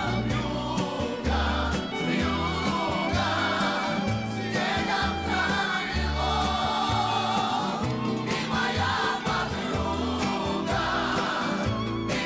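A song with several voices singing together over a bass line and a steady drum beat.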